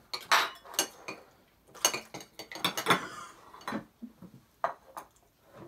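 Spoon clinking and scraping against a cereal bowl, a string of short irregular clinks.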